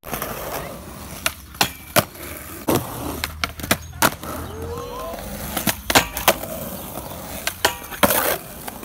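Skateboard wheels rolling on concrete, broken by a dozen or so sharp clacks of board pops, landings and the board hitting a metal rail during rail tricks.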